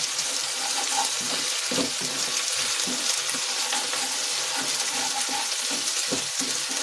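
Chopped onions and coarsely pounded ginger, garlic and green-chilli masala sizzling in hot oil in a non-stick kadhai, with a steady hiss. A spatula stirs them in repeated, uneven scraping strokes against the pan.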